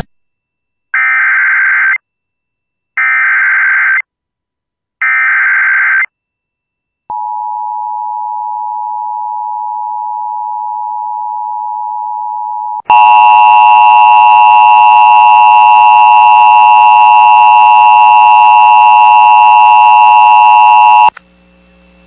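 Emergency Alert System activation: three one-second bursts of screeching SAME header data, a steady single tone for about six seconds, then a much louder multi-tone EAS alert tone for about eight seconds. The alert tone cuts off sharply near the end, leaving a faint low hum.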